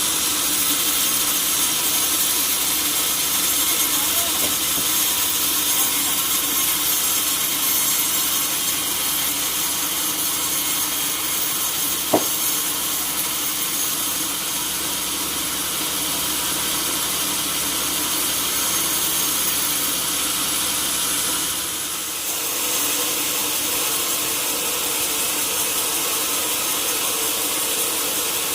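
A sawmill saw cutting lengthwise through a large log, making a steady, continuous sawing noise. There is a single sharp click about halfway through and a brief dip in level a little later.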